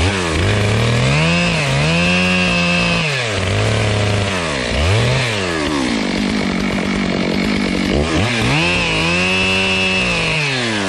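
Two-stroke chainsaw cutting down small trees, throttled up to full speed for a few seconds, dropping back with a short blip in between, then throttled up and held again before falling off near the end.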